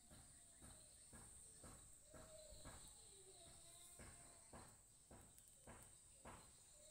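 Near silence: faint background ambience with a steady high-pitched hiss and soft, irregular taps about twice a second.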